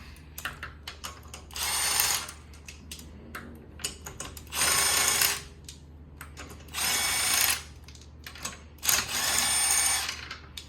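Power tool spinning the rear wheel's lug bolts out in four short bursts, each about a second long, as the wheel is taken off.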